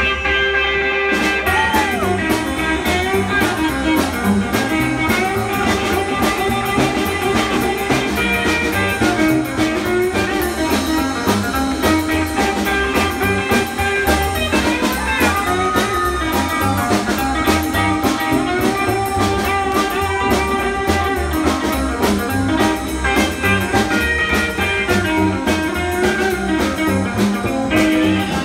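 Live rockabilly band playing electric guitar, upright double bass and drums, over a steady quick drumbeat.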